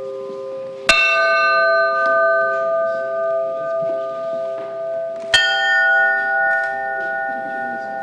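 New church bells struck one at a time: one about a second in, a higher-pitched one about five seconds in. Each rings on with several long steady tones over the fading ring of the bell before.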